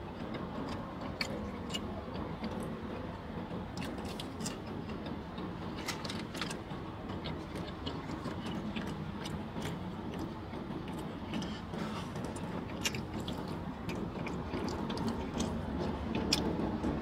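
A person chewing and smacking on sauce-drenched chicken wings, with many small wet clicks scattered throughout, over a steady low background hum.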